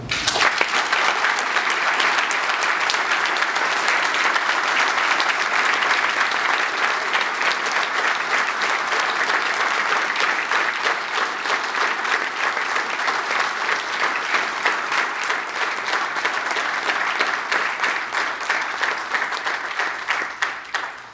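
Audience applauding: long, steady clapping that starts all at once and dies away near the end.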